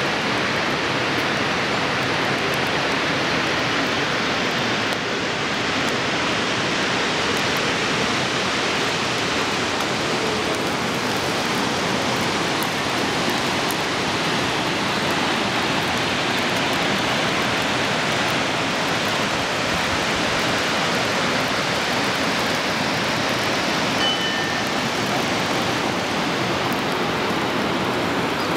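Steady, even rushing of fast-flowing water, unchanging throughout.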